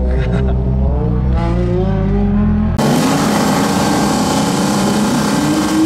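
Turbocharged Honda Civic drift car's engine revving hard on track, cutting in suddenly about three seconds in, its pitch climbing and then falling. Before it, steady low tones.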